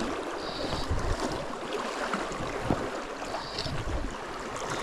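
Steady rush of a river running over stones, with wind buffeting the microphone in uneven low rumbles. Two brief high chirps sound, about half a second in and again near the end.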